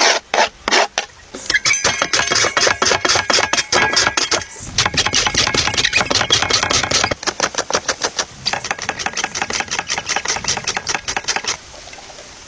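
Raw beetroot rubbed back and forth on a hand julienne grater with metal teeth: rapid, even rasping strokes, about five a second, that stop about a second before the end. A few scattered knocks come first.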